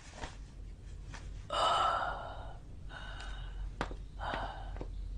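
A man's pained, heavy breathing: three loud gasping breaths, the strongest about a second and a half in, from someone wounded being settled back into bed.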